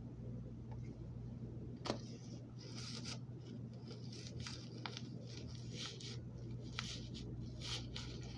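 Paper and tape rustling and crinkling in short, irregular bursts as a handmade paper squishy pencil is handled, starting after a sharp click about two seconds in. A steady low hum runs underneath.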